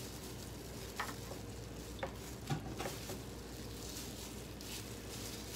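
Light kitchen handling: plastic-gloved hands squeezing lime wedges over a glass bowl of sliced beef, with a few short faint clicks and rustles about one to three seconds in, over a steady low room hum.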